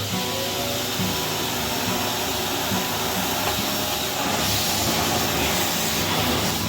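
Electrolux bagless vacuum cleaner switched on: its motor whine climbs in pitch through about the first second as it spins up, then it runs with a steady hiss of suction.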